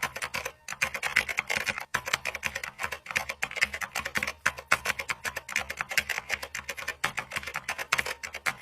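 Fast, irregular clicking and tapping, many short strokes a second.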